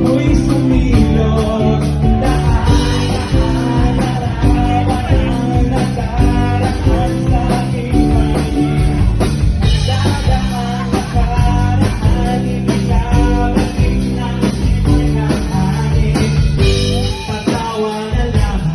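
Live band music: a lead singer's voice over guitar and a full rhythm section.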